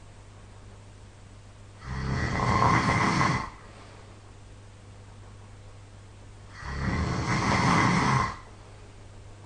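A person snoring loudly in sleep: two long snores about five seconds apart, each lasting about a second and a half. A faint steady low hum runs between them.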